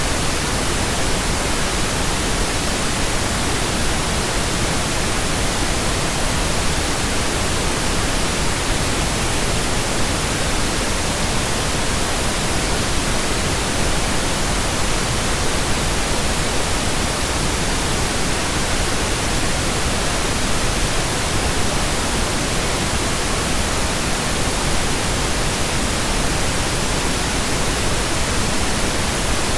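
Synthetic pink noise: a steady, even hiss spread across the whole range, with no tones, pulses or changes.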